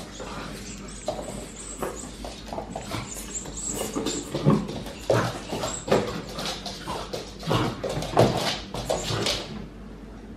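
A boxer puppy playing with a toy chicken on a hard wooden floor: a busy run of irregular scuffles, knocks and mouthing sounds, thickest through the middle seconds and tailing off near the end.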